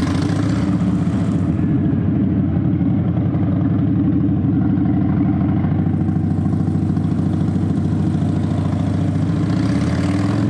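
Harley-Davidson V-twin motorcycle engine running steadily.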